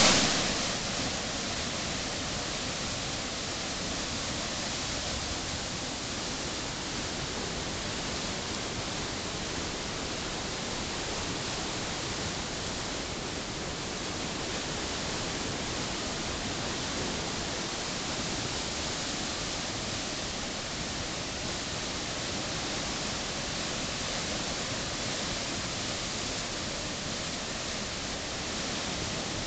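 A creek in flood, its swollen water rushing and churning over rapids in a steady, unbroken noise.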